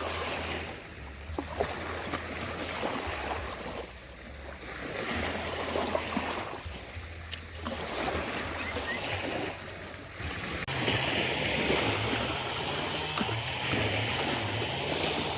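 Water washing in repeated swells, rising and falling every two to three seconds, with wind on the microphone. From about two-thirds of the way through, a steady hiss and a low wavering hum join in.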